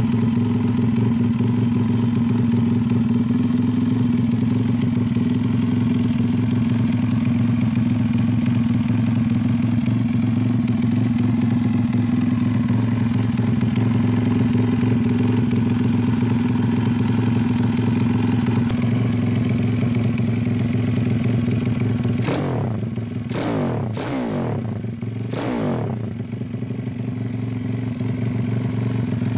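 Custom Honda Monkey's single-cylinder four-stroke engine idling steadily through an aftermarket exhaust, then a few quick throttle blips, the revs jumping up and dropping back, about three quarters of the way in.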